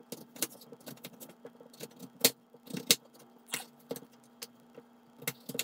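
Knife slicing through a raw sweet potato, the blade knocking on a plastic cutting board in short, irregular chops about one or two a second.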